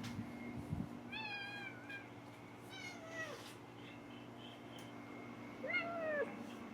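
Domestic cat meowing three times, each call a drawn-out meow falling in pitch at the end, spaced a couple of seconds apart. A few soft low knocks come just before the first meow.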